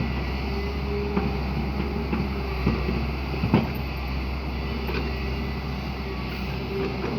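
Hyundai excavator's diesel engine running steadily under work, with a few sharp knocks.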